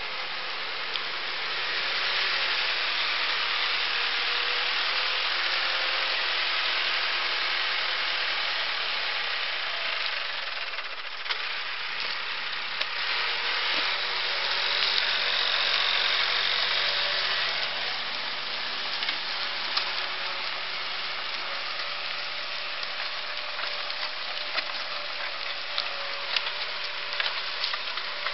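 Massey Ferguson 398 tractor's four-cylinder diesel engine running steadily under load as it pulls a five-disc plough, over a steady rushing hiss of turned soil and stubble. Sharp crackles and snaps of dry stalks and clods become more frequent in the second half.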